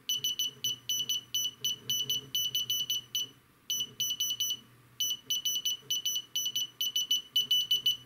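Buzzer driven by a Raspberry Pi beeping out a typed sentence in Morse code: short and longer high-pitched tones for dots and dashes, in runs broken by brief pauses between words.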